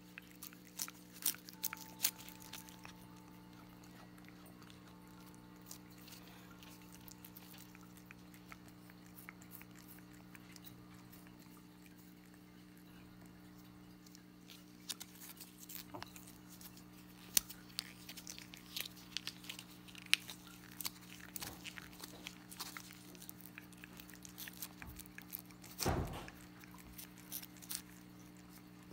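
A cat licking and lapping at a squeezable treat tube, its tongue making quick wet clicks, sparse at first and much busier in the second half, with one louder thump near the end. A steady low hum runs underneath.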